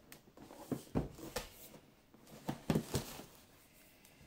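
Cardboard router box being handled, turned over and laid down on a table: several short knocks and scrapes with faint rustling, the loudest a little past halfway.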